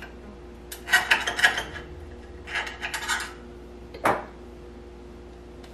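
A utensil scraping around cornbread muffins in a metal muffin tin to loosen and lift them out, in two short rounds of scraping, then a sharp clink about four seconds in.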